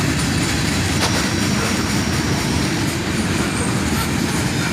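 Freight cars of a long manifest train rolling past: a steady rumble and clatter of steel wheels on the rails. A faint, thin, high wheel squeal joins about a second in.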